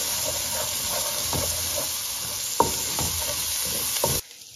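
Onion, ginger-garlic and tomato masala sizzling in hot oil in a metal karahi while a wooden spoon stirs and scrapes it, with two sharp knocks of the spoon on the pan. This is the bhunao stage, frying the spiced masala down before water is added. The sizzle cuts off suddenly near the end.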